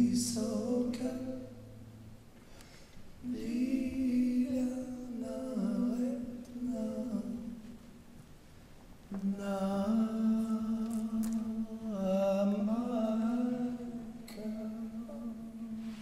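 A solo voice singing a slow, ornamented melody a cappella in long phrases, with breath pauses between them. A low held drone underneath stops about two seconds in.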